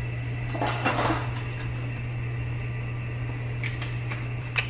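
Steady low mechanical hum of a kitchen appliance or fan, with a short rustle about a second in and a sharp click near the end.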